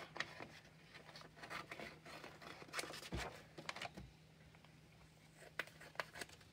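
Faint handling of paper and craft materials on a tabletop: scattered light clicks and rustles, with a soft thump about three seconds in and another about a second later.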